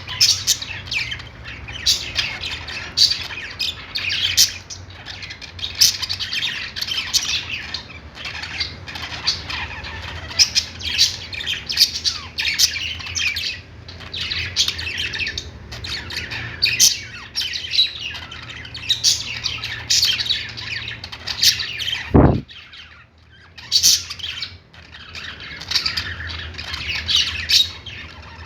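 A flock of budgerigars chattering continuously with many overlapping short chirps and squawks. There is a single low thump about three-quarters of the way through, after which the calling briefly thins out.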